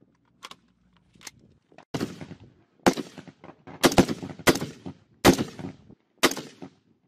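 Rifle shots fired singly on a range: six loud shots about a second apart, each with a short echoing tail, after two fainter shots in the first second and a half.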